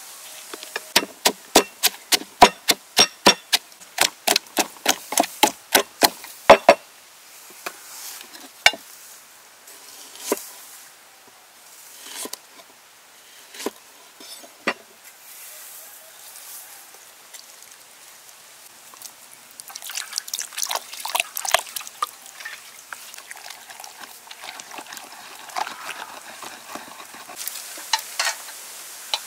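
Pestle pounding chillies, garlic and sugar in a mortar: a fast run of sharp knocks, about three a second, for several seconds. Then a few single knife strokes through limes onto a wooden board, and near the end bursts of light clicking as bamboo skewers are handled.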